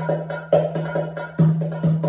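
Darbuka (goblet drum) played by hand in the masmoudi kabir rhythm: deep ringing doum strokes alternating with sharp, higher tek strokes and lighter fill taps in a steady repeating pattern.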